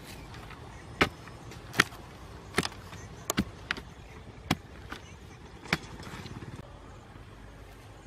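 Sharpened bamboo stick jabbing into dry, hard earth while digging: about eight sharp knocks, roughly one a second, with a softer rustle of loose soil near the end.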